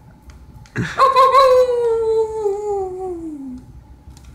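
A single long howl, starting about a second in and sliding slowly downward in pitch for about two and a half seconds before fading out.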